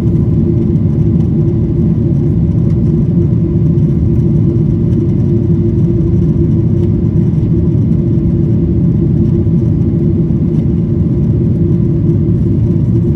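Aircraft engines running in a steady low drone, with a constant hum over the rumble.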